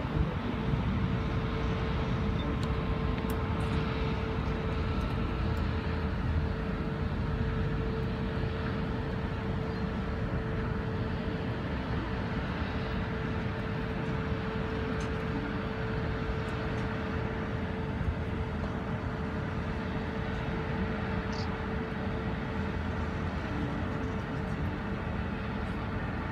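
Aerial cable car cabin travelling along its cable: a steady low rumble and wind noise, with a steady hum throughout.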